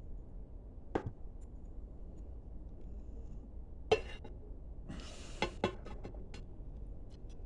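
Hands handling nylon fishing line and a PVC pipe: a few sharp clicks and taps, the loudest near four seconds in, and a short rustle with two quick clicks about five and a half seconds in, over a low steady hum.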